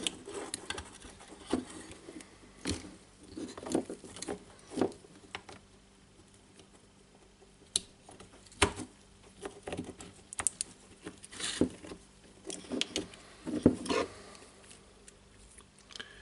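Scattered light clicks, taps and scratchy rustles of a Milwaukee M18 FID2 impact driver's plastic housing, wiring and connectors being handled and fitted by gloved hands. The clicks come irregularly, a sharper one about eight and a half seconds in.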